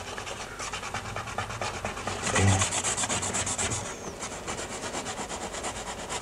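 A hand working quickly over a surface with rapid, repeated scratchy rubbing strokes, several a second, heaviest about two and a half seconds in.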